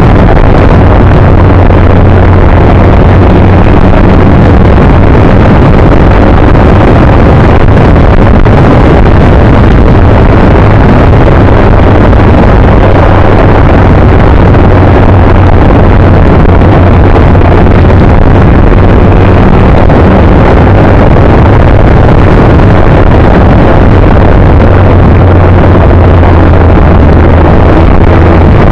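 Motorcycle engine running steadily at speed under heavy wind rush over the microphone, very loud throughout.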